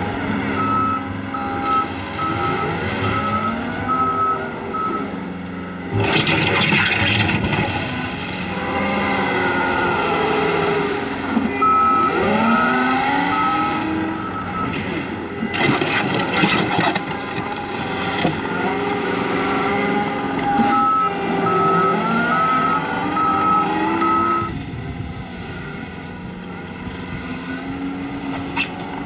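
Skid steer working gravel: its diesel engine revs up and down while its backup alarm beeps in three separate runs as it reverses. Two stretches of rock scraping and grinding come about six seconds in and again around the middle.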